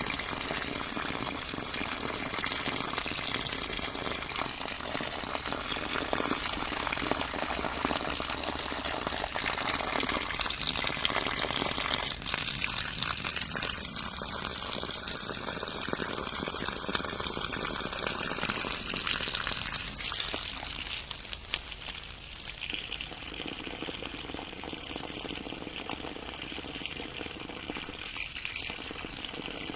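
Water running and rippling, a steady rush that turns somewhat quieter and thinner in the last third.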